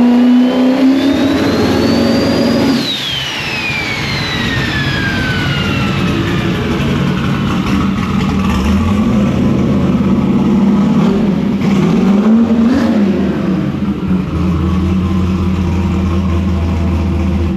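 Turbocharged Chevy Nova drag car engine revving, its turbo whistle climbing with the revs. About three seconds in the throttle is let off, the engine note drops and the turbo spools down in a long falling whistle. The engine then runs on at a fast idle, with one short blip a little past the middle.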